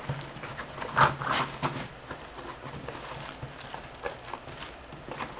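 Handling of packaging and bagged accessories from a cordless phone box: scattered taps, clicks and knocks of plastic and cardboard, with one louder knock about a second in.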